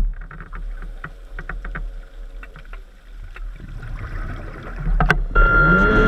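Underwater sound: scattered faint clicks and crackles over a low hum. A sharp knock comes about five seconds in. Then a steady whining drone with a low rising tone starts near the end.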